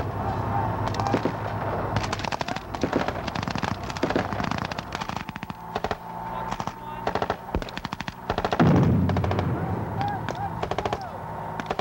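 Military rifle fire in a field exercise: single shots and rapid automatic bursts from several rifles, crackling on and off. About two-thirds of the way in comes a louder, deeper blast.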